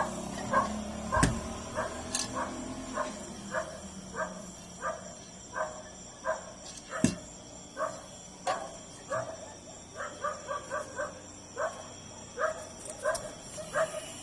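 A dog barking repeatedly, short barks about one to two a second with a quicker run near the end, and two sharp clicks, one about a second in and one about seven seconds in.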